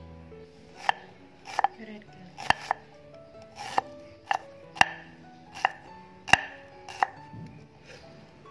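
Cleaver slicing through red shallots and striking a wooden cutting board: about ten sharp knocks at an uneven pace, about one every half to one second, stopping about a second before the end. Background music plays underneath.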